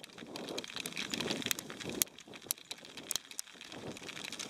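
Hail falling: sharp, irregular ticks of pellets striking close by, over a softer low rustle.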